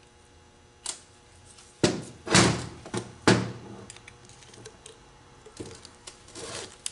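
Metal knocks and clunks of hand tools and transmission parts on a workbench as a CVT pump's flow control valve is worked loose. There is a click about a second in, then three loud knocks between two and three and a half seconds in, the last ringing briefly, followed by lighter taps.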